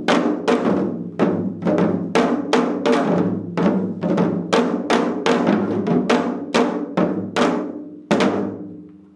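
Janggu, Korean hourglass drums, played together in a seoljanggu piece: a steady run of strikes, about three a second. The run closes with one last loud stroke a little past eight seconds in, which rings out as the piece ends.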